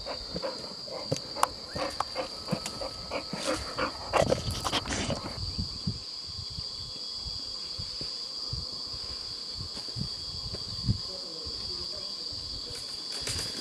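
A steady, high-pitched insect drone. Over the first five seconds it is joined by irregular footsteps, knocks and scrapes of boots and gear on rock and branches as hikers scramble upward, thickest around four to five seconds in. After that only the insect drone goes on.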